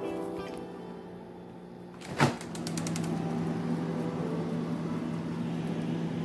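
A freezer drawer is pulled open with a short, sharp rattle about two seconds in, followed by a steady low hum.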